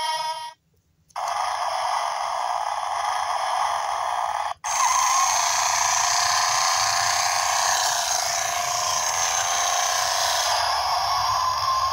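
Road Rippers Raminator toy monster truck running across carpet: a steady, hissy, high-pitched whir from its small motor and drive, starting about a second in, cutting out briefly, then coming back louder from about five seconds in. A short electronic tone ends just as it begins.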